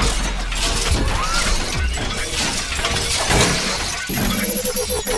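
Dense shattering and crunching noise, like glass and hard parts breaking, over a steady low rumble, with faint music underneath.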